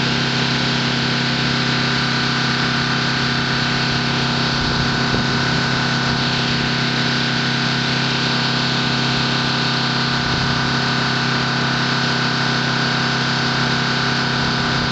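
An engine idling steadily: a constant hum on several fixed pitches that neither rises nor falls.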